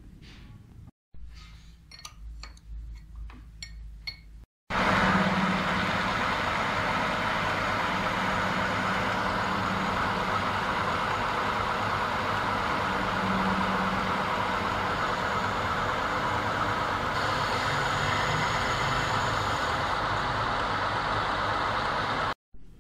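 Metal lathe running steadily, spinning a turned steel steam-nozzle body between the chuck and the tailstock centre. Before that, a few light metallic clinks; the steady running sets in about five seconds in.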